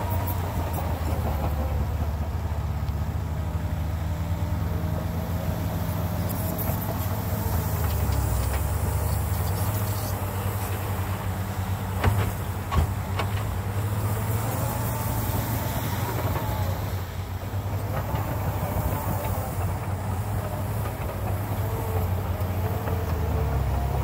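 Caterpillar 953D track loader's diesel engine running steadily while it moves and works its bucket, with a whine that rises and falls. About halfway through come two sharp knocks as the bucket dumps fill into a dump truck's bed.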